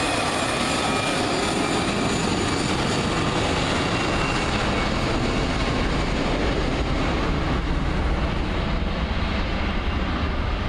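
Jet engines of an Airbus A320-family airliner running as it rolls along the runway: a steady, even engine noise that holds at one level throughout.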